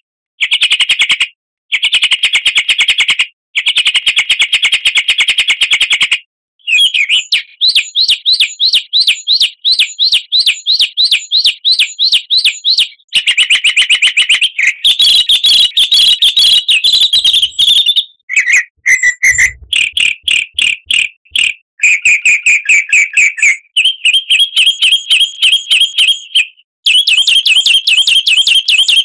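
Songbird lure recording: rapid chattering trills of fast repeated notes in phrases a few seconds long, shifting pitch from phrase to phrase and broken by sudden short gaps, played to get caged birds to sing.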